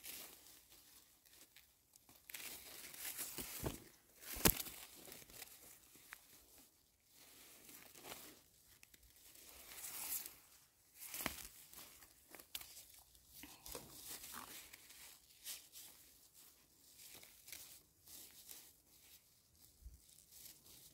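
Faint, irregular rustling and crackling of forest-floor vegetation as mushrooms are picked and handled, with a few sharp snaps, the loudest about four and a half seconds in.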